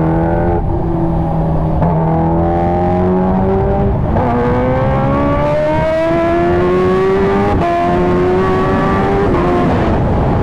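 Kawasaki Ninja H2R's supercharged inline-four engine accelerating through the gears. The engine note climbs, then drops back at each upshift, several times over.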